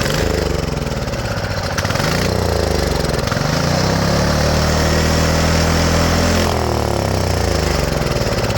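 Small single-cylinder engine of a mini bike running just after starting, its speed sagging and climbing again several times. The governor is bypassed and there is no throttle cable, so nothing holds the revs in check.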